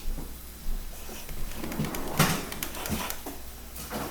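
A few short knocks and rustles, the loudest about two seconds in.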